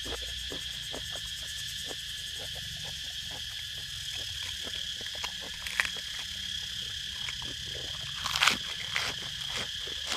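Chewing and crunching of food close to the microphone: irregular crisp clicks, with one louder crunch about eight and a half seconds in. Behind it, insects drone steadily at a high pitch.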